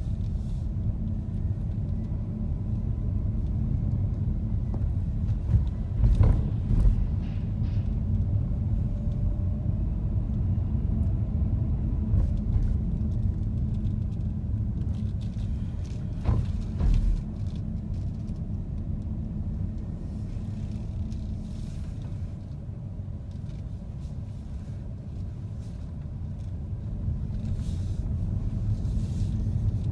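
Steady low rumble of a car's engine and tyres heard from inside the cabin while driving, with two heavier thumps, about six seconds in and again about sixteen seconds in.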